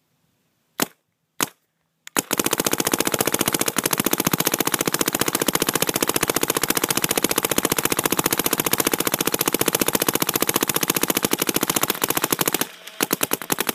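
Dye DM10 electropneumatic paintball marker firing: two single shots, then an unbroken stream of rapid shots on ramp mode at about 15 balls per second for some ten seconds, then a few more short rapid strings near the end. It fires super smooth, without a single ball breaking.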